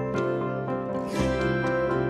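Instrumental background music: plucked string notes over sustained bass tones.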